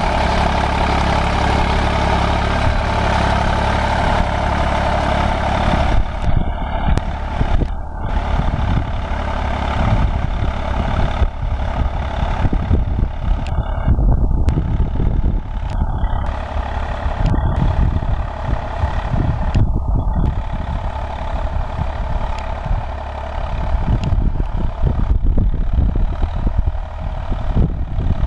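Tractor diesel engine running under load while pulling a reversible mouldboard plough through soil. About six seconds in, the steady hum gives way to a rougher, uneven rumble as the tractor moves away.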